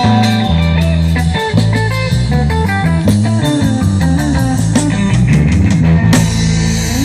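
Live band playing the closing instrumental bars of a samba, with plucked guitar and drums and no singing.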